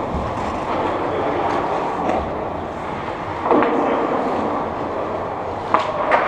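Steady hiss and rumble of ice hockey play, with skates on the ice. Near the end a stick cracks against the puck in a shot, and a second sharp knock follows moments later.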